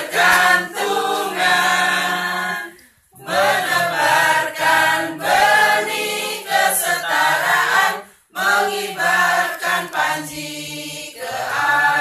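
A group of voices singing a song together in Indonesian, holding long notes, with brief breaks between phrases about three seconds in and again about eight seconds in.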